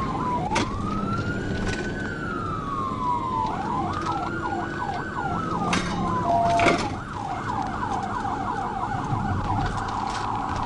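Police cruiser's electronic siren sounding in a slow rising and falling wail, then switching to a fast yelp about three and a half seconds in. Several sharp clicks and the car's road and engine noise run underneath.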